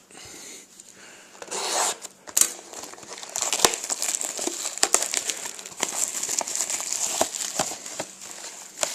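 Plastic wrapping on a box of trading cards being torn open and crinkled, with one longer rip about two seconds in followed by steady crackling and rustling.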